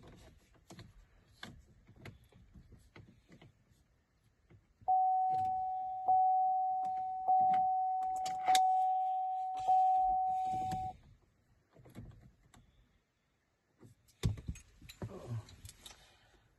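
Light clicks and rattling of keys being handled, then the GMC's interior warning chime sounding five times, one bell-like tone about every 1.2 seconds, each fading before the next. Near the end, a knock and some rustling.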